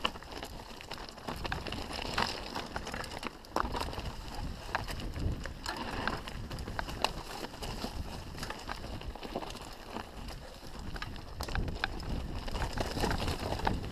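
Mountain bike rattling down a rocky trail: tyres crunching over loose stones, with frequent sharp clatters and knocks from the bike, over a steady low rumble of wind on the microphone.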